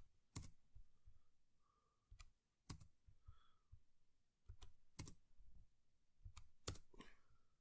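Faint computer keyboard typing: a dozen or so separate keystrokes at an uneven pace, with short pauses between small groups.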